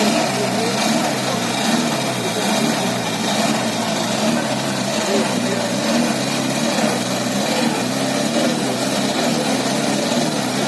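UAZ Bukhanka van's engine working under load off-road, its revs rising and falling about once a second.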